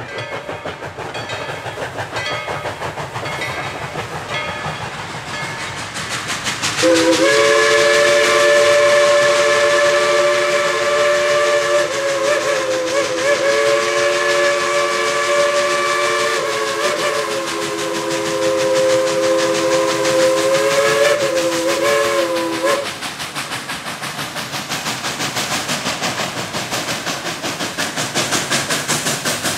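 Steam locomotive exhaust chuffing, then a multi-tone chime steam whistle from Dollywood Express No. 192 "Klondike Katie", a 3 ft gauge Baldwin 2-8-2, blown in one long blast of about sixteen seconds starting about seven seconds in. The chuffing of the hard-working engine goes on after the whistle stops.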